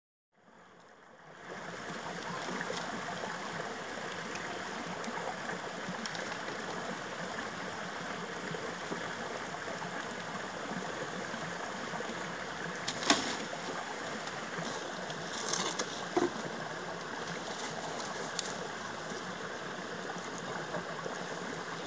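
Steady rushing of a flowing stream, with a few sharp snaps, the loudest just past the middle.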